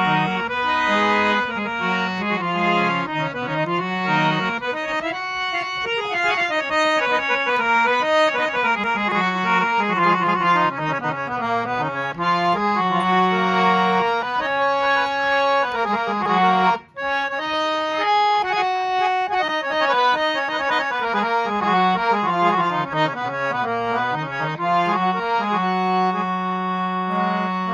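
Folding harmonium with nine stops playing a melody of sustained reedy notes over a held low drone note, with one brief break in the sound about two-thirds of the way through.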